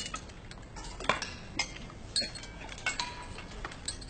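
Cutlery clinking against plates and bowls as several people eat, in irregular light clinks, a few with a short ring.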